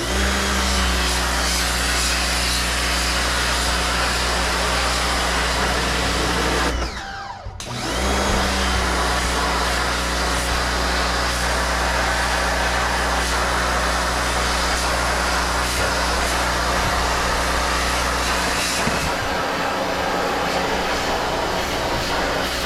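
Electric pressure washer running, its motor and pump humming steadily under the hiss of the water jet spraying the deck. About seven seconds in it cuts out for under a second, winding down, then starts again.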